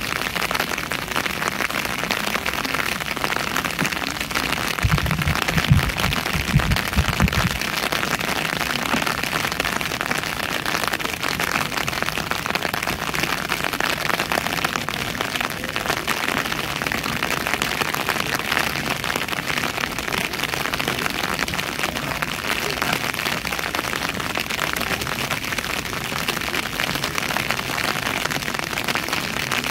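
Steady rain pattering on an umbrella held overhead. A few low rumbling thumps come about five to seven seconds in.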